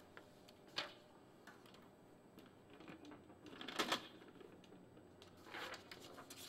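A sheet of printer paper rustling as it is handled and laid on top of an inkjet all-in-one printer, with a few light clicks. The loudest rustle comes about four seconds in, and another follows near the end.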